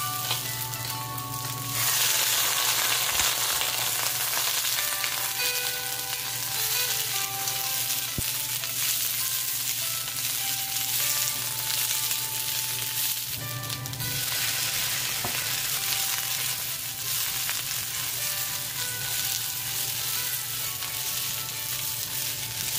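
Green beans, snow peas and red bell pepper sizzling in a hot steel wok as they are stir-fried with a spatula. The sizzle swells louder about two seconds in and again around fourteen seconds, with soft background music underneath.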